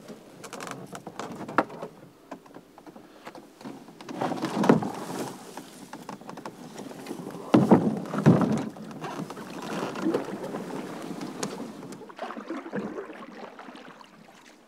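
A canoe being set down from the shoulders into the water, with clicks and knocks and two louder thuds and swishes, then paddle strokes through the water.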